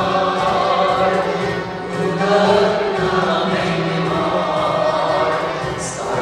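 A mixed choir of men and women singing a Turkish song in sustained lines, accompanied by accordion and violin.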